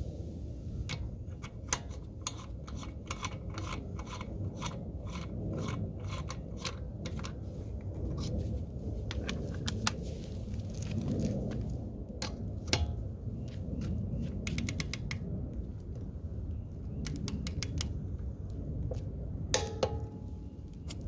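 Scattered sharp metallic clicks and scraping from hand tools being handled on a nut, with a few quick runs of clicks, over a steady low rumble.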